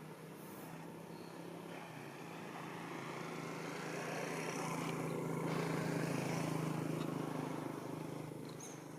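A motor vehicle passing: a steady engine hum and road noise that grow louder to a peak about six seconds in, then fade away.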